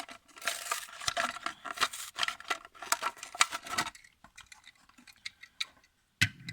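Crinkling and crackling of a toy car's plastic blister pack and card backing being torn open. It is dense for about four seconds, then thins to a few scattered clicks, with a knock near the end.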